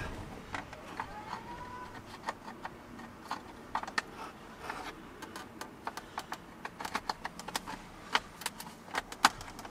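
Irregular light clicks and plastic taps from handling an instrument cluster and its wiring connector, which is not going in as expected, with cloth brushing close to the microphone.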